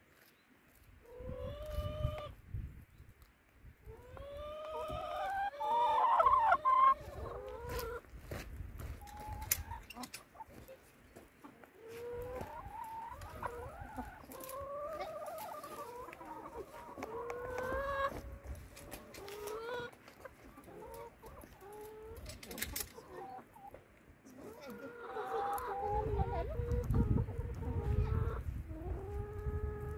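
A flock of brown laying hens clucking and calling, many short rising-and-falling calls overlapping, with a low rumble near the end.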